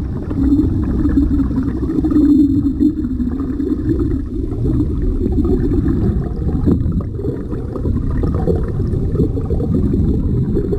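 Muffled, steady low rumble of water and a boat's engine, heard through a camera held underwater in its waterproof housing.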